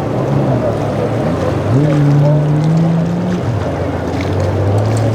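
Motorboat engine running. It throttles up about two seconds in, holds higher for a second or so, then drops back, over the wash of waves and wind.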